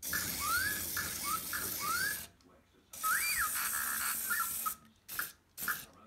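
Remote-control R2-D2 toy droid playing its electronic beeps and rising whistles over a hissing whir, in two bursts of about two seconds each, then a few short chirps near the end.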